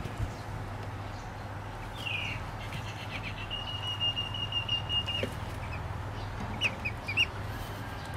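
Ducklings peeping: a falling peep about two seconds in, a quick run of short peeps, a long steady high note, then a few more short peeps near the end.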